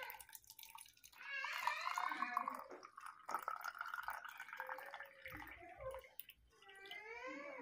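A thin stream of liquid pouring into a plastic baby bottle, splashing and trickling as the bottle fills. A cat meows near the end.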